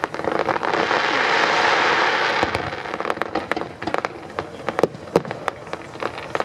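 Fireworks display going off: a dense, continuous rush of noise for the first two and a half seconds, then thinning into scattered sharp cracks and bangs.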